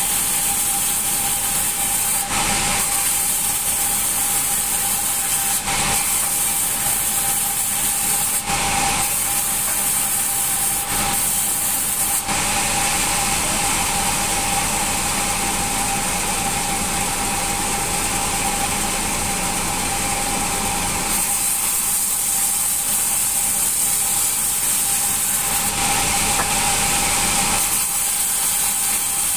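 Band sawmill running and cutting through hard acacia with a steady whine and a broad hiss that thickens for several seconds in the middle. The band blade is dull, its teeth left unfiled.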